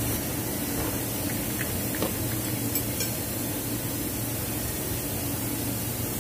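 Steady hiss and low hum of workshop background noise, with a couple of faint light clicks about two and three seconds in.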